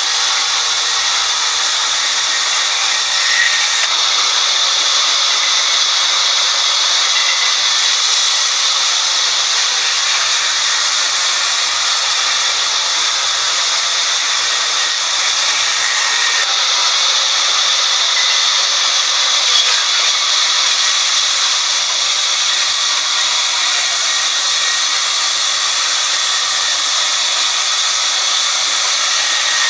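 Sawmill band saw ripping lengthwise through a large log: a loud, steady sawing noise that runs without a break.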